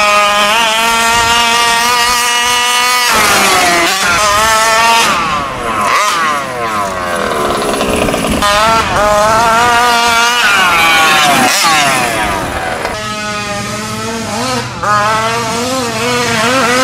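Two-stroke gas engine of a fifth-scale RC truck, a Taylor 46 GT, revving with the throttle. Revs are held high for about the first three seconds, then fall and climb again and again as the truck is driven.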